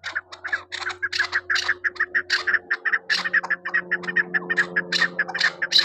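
Chukar partridge calling a fast, unbroken run of harsh chuk notes, about five a second. A faint steady low hum lies underneath.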